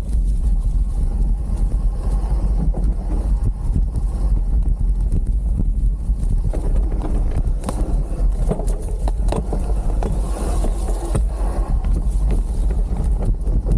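Wind buffeting the microphone over the rumble and rattle of a full-suspension mountain bike riding down a dirt forest trail, with a run of sharp knocks and clatters over bumps from about six and a half to eleven seconds in.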